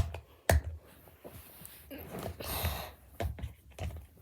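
A few sharp clicks and knocks of small hard objects being handled, with a short rustle about two and a half seconds in.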